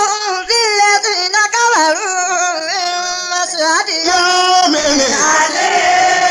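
Singing of a Yoruba Islamic chant: a single voice winds through long, wavering held notes. Near the end the sound thickens into a fuller, several-voice chorus holding one long note.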